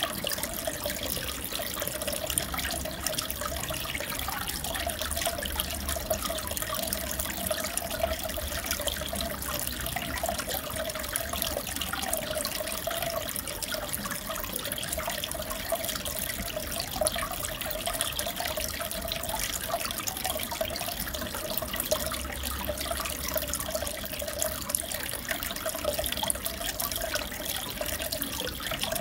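Aquarium water trickling and bubbling steadily, with many small crackles of splashing over a low hum.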